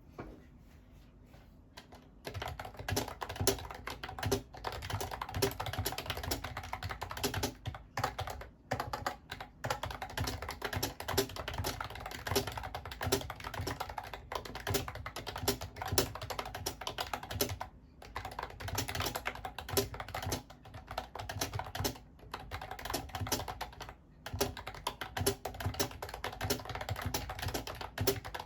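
Typing on a Mofii Candy wireless keyboard: rapid, continuous key clicks with a few short pauses, starting about two seconds in.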